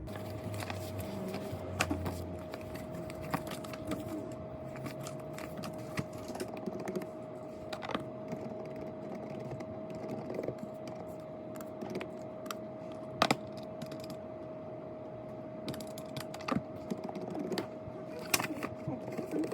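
Computer keyboard typing in irregular runs of clicks, with a few louder key strikes, over a steady background hum.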